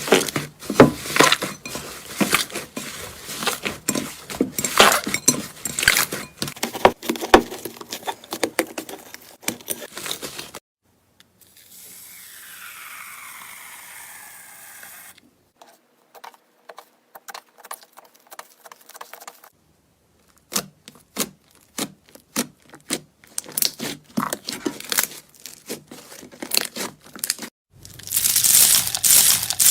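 Slime being squeezed, poked and pulled by hand: rapid crackling and popping clicks, in several separate stretches with short silent cuts between them. A quieter stretch in the middle holds only a soft hiss, and the crackling is densest and loudest near the end.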